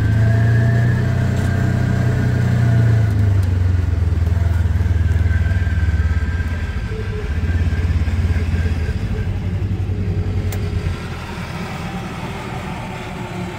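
Farm tractor engine running close by, then fading about eleven seconds in as it pulls away.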